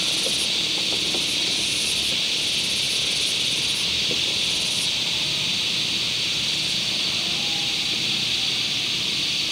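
A steady, high insect drone from the forest. A second, higher insect call pulses over it in bursts and stops about five seconds in.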